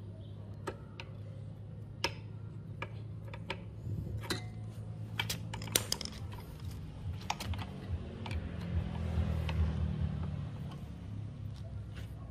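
Scattered metallic clicks and taps from a wrench turning the long bolt of a homemade piston-pin puller, slowly forcing a tight, seized piston pin out of a scooter piston. A low steady hum runs underneath.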